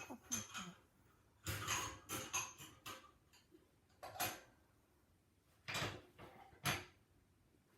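Maltese dog snoring in deep sleep: short, breathy snores, about six of them at uneven intervals, with the loudest near the end.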